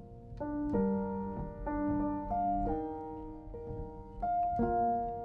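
Instrumental piano music: slow sustained chords, a new chord struck every half second to a second and a half, without singing.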